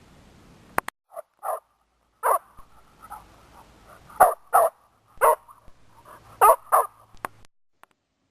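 A dog barking, about eight short barks, several in quick pairs, with a couple of sharp clicks just before the first bark.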